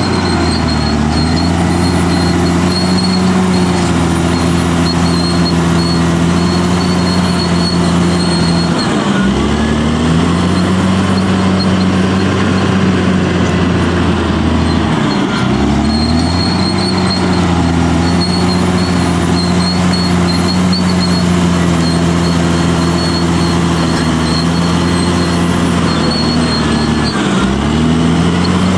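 Caterpillar D6R bulldozer's diesel engine running steadily at working revs, its note dipping briefly and recovering three times. A thin high whine comes and goes over it.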